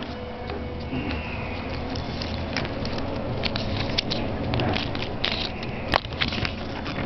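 Paper leaflets and plastic packaging being handled and unfolded: irregular rustling and crinkling, with a sharp click about six seconds in.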